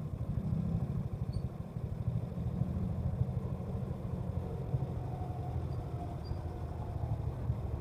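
Motorcycle engine running at low, steady revs with an even low hum.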